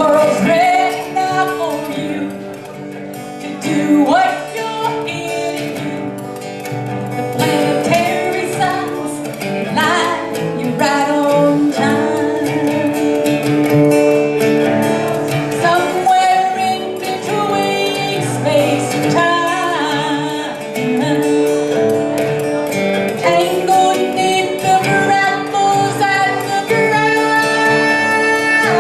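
Acoustic guitar playing with singing over it, in a slow, steady song.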